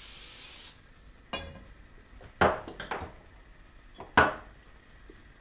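Cooking-oil spray hissing into a non-stick frying pan, cutting off under a second in. Then four separate clunks as the pan is set down on the gas hob's grate and the spray bottle is put back on the worktop, the last about four seconds in and the loudest.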